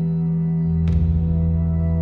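Slow ambient new-age music: a steady sustained drone of held tones, with a deeper tone swelling in and a single struck note about a second in that rings on and fades.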